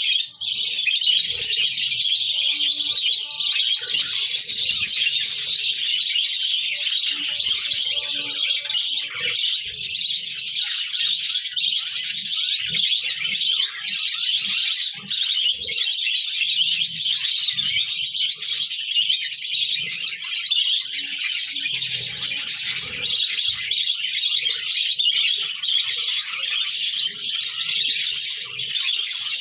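A flock of budgerigars chattering all at once: a dense, continuous, high-pitched twittering and warbling of many birds.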